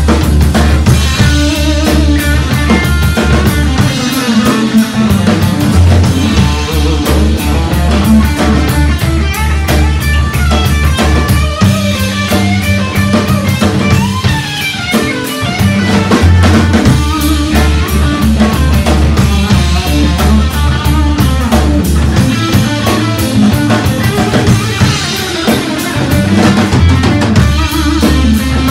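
A live rock band playing: electric guitar, bass guitar and a drum kit, over a steady pulsing bass line.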